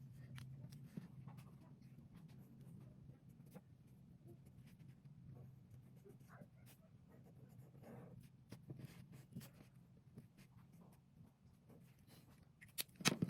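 Faint scratching and tapping of a pen or marker on paper over a steady low room hum, with a short, louder clatter of handling near the end.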